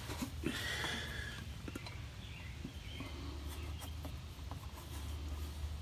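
Faint rustling and light handling noises, strongest in the first second and a half, over a steady low hum.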